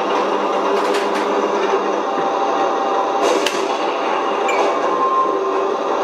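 Simulated tank engine running steadily, played by an RC T-34/85 model's electronic sound unit through its small onboard speaker while the turret traverses. A few sharp clicks come about a second in and twice around three and a half seconds.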